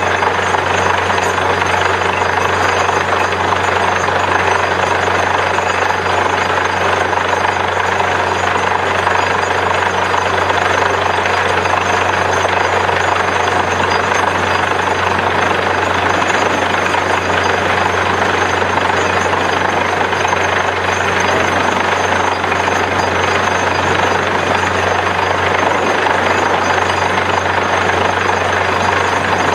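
Borewell drilling rig running steadily: a constant low engine drone under dense mechanical noise from the drilling, unbroken throughout.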